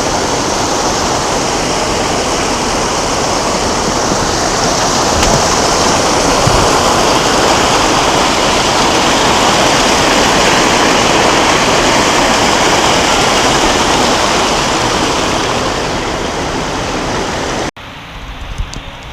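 Fast-flowing creek, swollen with snowmelt and rainwater, rushing loudly and steadily over rocks; it cuts off abruptly near the end.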